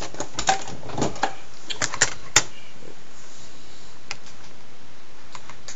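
Plastic Blu-ray case and its wrapping being handled: a quick run of sharp clicks and snaps in the first couple of seconds, then a few scattered clicks.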